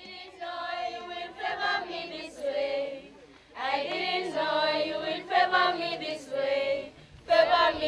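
A choir singing a gospel song in long held phrases, with a short break in the singing about three seconds in.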